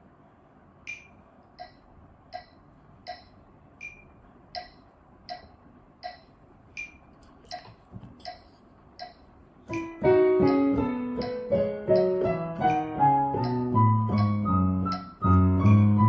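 Metronome app clicking steadily at 84 beats a minute, then about ten seconds in a digital piano starts an E major scale in contrary motion, the two hands' notes moving apart and back while the clicks go on.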